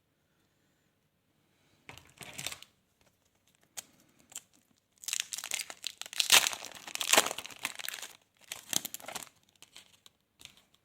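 A trading card pack's wrapper being torn open and crinkled: a short rustle about two seconds in, then a longer run of tearing and crinkling from about five seconds in that stops shortly before the end.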